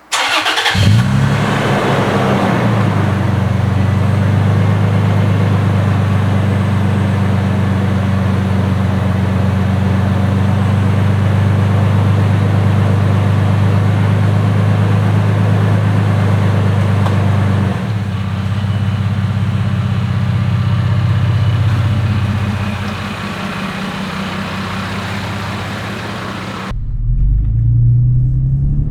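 2010 Toyota FJ Cruiser's 4.0 L V6, breathing through an aFe 3-inch cat-back dual exhaust, starts up with a brief flare of revs that settles within a couple of seconds into a steady, deep idle drone. The note shifts around 18 seconds in and runs a little quieter after about 22 seconds. About 27 seconds in the sound cuts abruptly to a low rumble.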